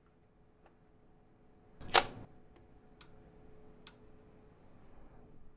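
One sharp click about two seconds in, then a couple of faint ticks, from the handling of a Testo 770-3 clamp meter: its plastic jaw snapping shut around a wire. A faint steady hum runs underneath.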